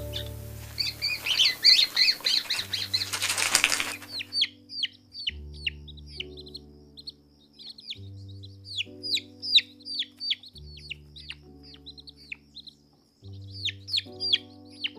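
Many short, high bird chirps, each sweeping downward, repeating over slow sustained background music chords. In the first four seconds the chirps are denser and mixed with a rustling noise, and they thin out after that.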